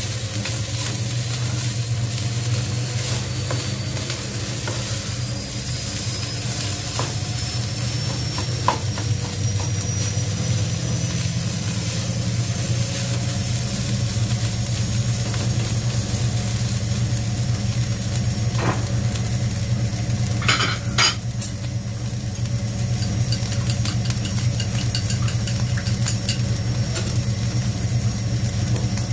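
Fried rice sizzling in a nonstick wok as a spatula stirs and scrapes through it, with a few sharper knocks of the spatula against the pan, mostly around two-thirds of the way through. A steady low hum runs underneath.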